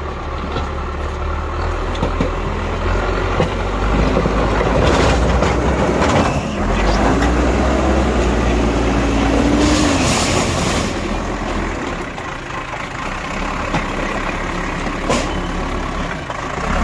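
Bulldozer's heavy diesel engine running with a deep steady drone. Its pitch rises and holds for a few seconds in the middle before dropping back. Scattered knocks, and a short hiss about ten seconds in.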